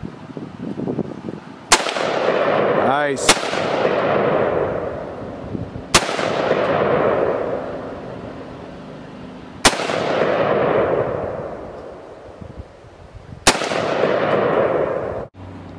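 Five single rifle shots at an unhurried pace, each a sharp crack followed by a long echo that dies away over a few seconds.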